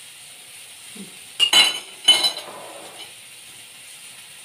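Two sharp metallic clinks of cookware at a gas stove, about a second and a half in and again half a second later, over a faint steady hiss.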